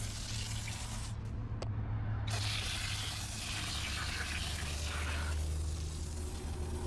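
Liquid spraying in a hissing jet onto a foam-covered alloy wheel, with a break of about a second near the start before it resumes. Underneath is a steady low hum that drops in pitch about two seconds in.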